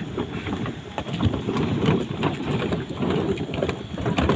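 Small waves lapping and splashing against a floating plastic pontoon dock and moored speedboat hulls: a dense, irregular crackling patter.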